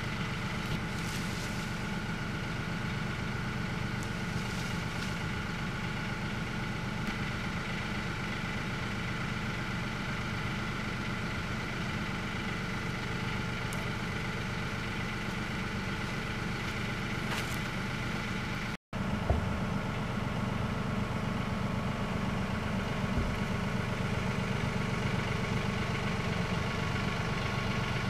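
Compact tractor engine idling steadily, with a momentary dropout about two-thirds of the way through.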